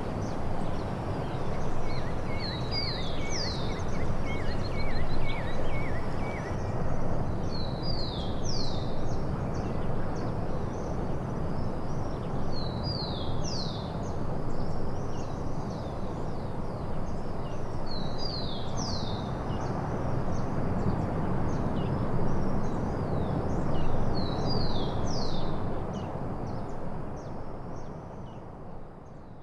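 A songbird repeats the same short whistled phrase about every five seconds: a couple of quick high notes, then longer downward-slurred whistles. Quicker chirps from another bird come in the first few seconds, over a steady rushing background noise, and everything fades out near the end.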